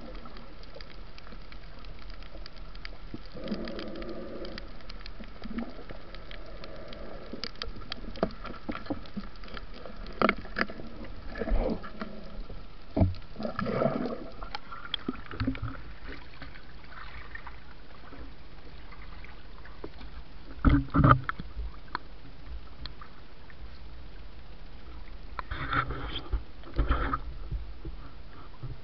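Underwater sound picked up by a camera in a waterproof housing on a reef dive: a steady muffled water murmur with scattered clicks and crackles. Louder knocks and sloshes come midway, two sharp thumps about two-thirds of the way through, and more sloshing near the end.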